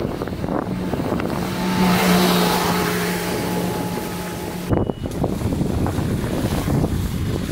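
Vehicle driving on a wet, muddy road: tyre and wind noise with a steady engine drone for the first few seconds, then an abrupt change to plainer road and wind noise.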